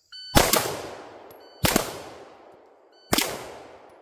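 Three handgun shots fired at a slow steady pace, about a second and a half apart, each followed by a long fading echo.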